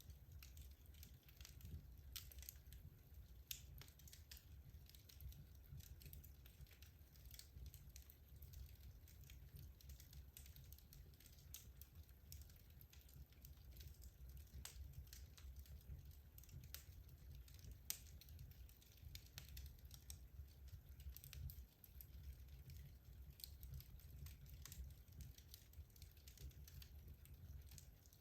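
Wood logs burning in a fireplace, crackling faintly with frequent small irregular pops over a low steady rumble; one sharper pop stands out about eighteen seconds in.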